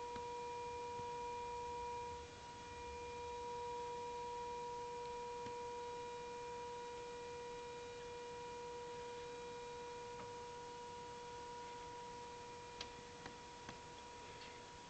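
An unexplained droning hum: one steady held note with faint overtones, dipping slightly about two seconds in. A few faint clicks come near the end.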